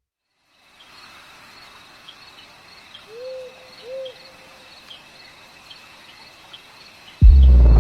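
Night ambience sound effect: crickets chirping steadily and an owl hooting twice. A sudden loud low boom cuts in near the end.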